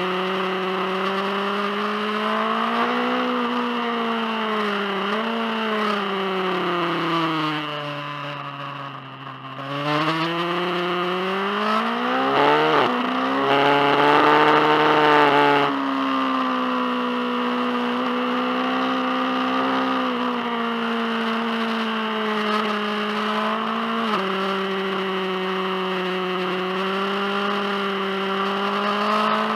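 BMW S1000RR's inline-four engine running on the road, heard from the rider's seat: the revs sag about eight seconds in as the throttle eases off, then climb louder for a few seconds before dropping back abruptly and holding a steady cruise.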